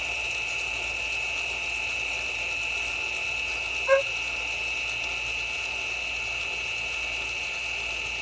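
Electric parking brake motor on a VW Tiguan rear brake caliper, powered straight from a 12-volt battery, running with a steady high-pitched whine as it winds the spindle that pushes on the piston back in. A brief short sound about four seconds in.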